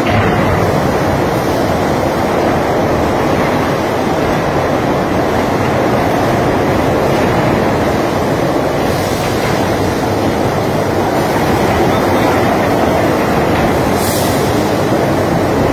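Steady rolling rumble of electric bumper cars running over a concrete floor, with no clear bumps.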